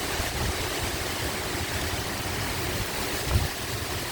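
Strong thunderstorm wind gusting, with heavy rain pouring down as a steady hiss and the wind buffeting the microphone in a low rumble. A brief, stronger gust hits about three seconds in.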